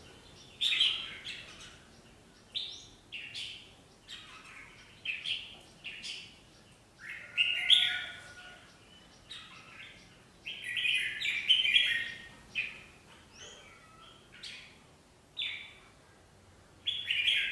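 Caged red-whiskered bulbuls calling in short, bright chirping phrases, roughly one a second with brief pauses between them.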